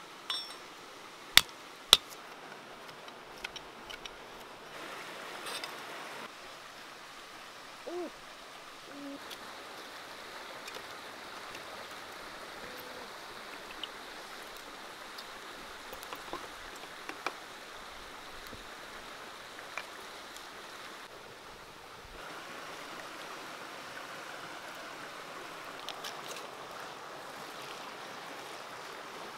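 A knife blade knocks twice on a stone slab, crushing garlic cloves, about a second and a half in. Then comes a steady rush of running water, with sparse small crackles and clicks from a wood fire burning under a clay pan.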